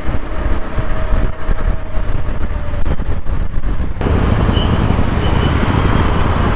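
Riding a KTM 390 Adventure motorcycle at speed: wind rush and road noise on the camera microphone with the engine running underneath. About four seconds in, the sound switches abruptly to a louder, more even rush.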